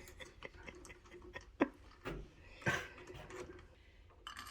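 Light clicks, taps and rubbing of door-knob lockset parts and screws being handled, with one sharper click about a second and a half in.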